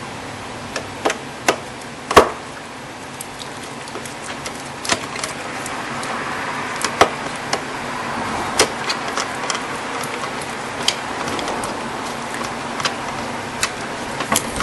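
Scattered clicks and taps of a long screwdriver working out the screws of a plastic air filter housing, with a sharper knock about two seconds in, over a steady hiss.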